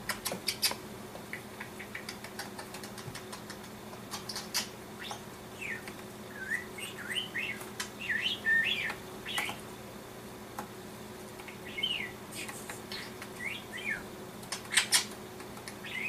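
Budgerigar chattering in short, high chirps, densest about six to nine seconds in and again around twelve to fourteen seconds, with a few sharp clicks in between.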